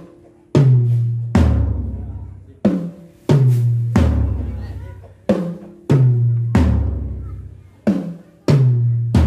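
Yamaha drum kit struck one drum at a time for a sound check: three drums hit in turn from higher to lower pitch, each ringing out low for about a second, the pattern repeating three times.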